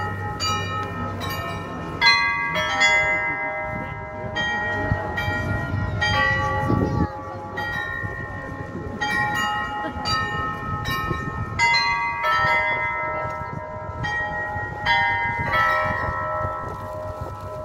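The Olomouc astronomical clock's bells playing a tune: quick struck notes of different pitches that ring on over one another, in phrases with short breaks.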